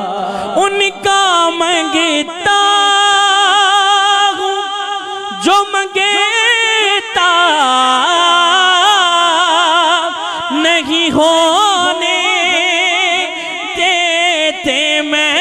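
A man singing an Urdu naat into a microphone, drawing out long held notes decorated with fast wavering ornaments, with only a few short breaths between phrases.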